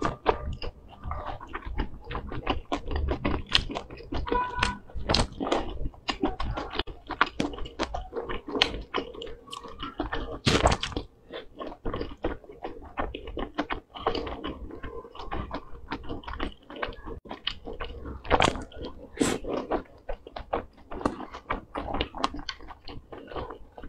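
Close-up chewing and biting of dumplings soaked in chili oil: wet, irregular mouth clicks and smacks that go on the whole time.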